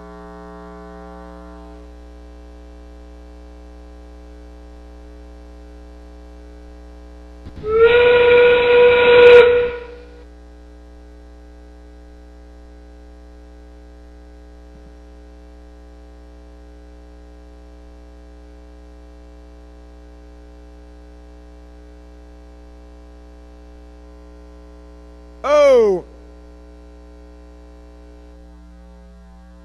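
Arena sound system with a steady electrical hum. About eight seconds in, a loud train-whistle blast lasts about two seconds: the FRC warning that 30 seconds of the match remain. Near the end comes a brief loud tone that falls sharply in pitch, the end-of-match signal.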